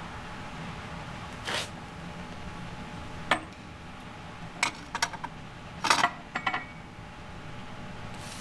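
Kitchenware being handled on a counter: a handful of sharp clinks and knocks of glass and metal, the busiest cluster about six seconds in, where one clink rings briefly. Under them runs a low steady hum.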